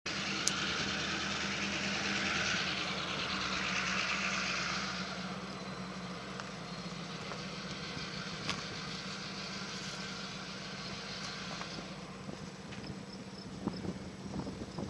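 Steady low engine hum, like an engine idling, with a broad hiss over the first five seconds that then fades, and a couple of faint ticks.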